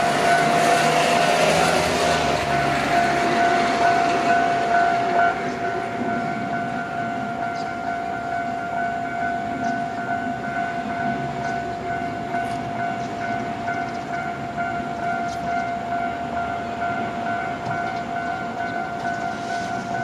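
A Japanese level-crossing warning bell rings steadily while a Shizuoka Railway electric train runs through the crossing. The train noise stops suddenly about five seconds in as the last car clears, and the bell keeps ringing.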